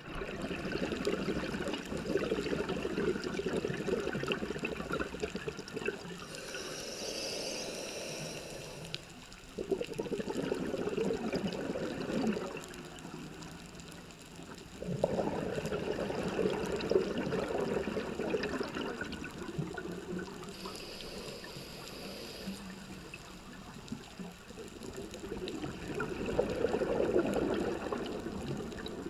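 Scuba diver breathing through a regulator, heard underwater: four gurgling bursts of exhaled bubbles a few seconds apart, with a fainter high hiss of inhaling between some of them.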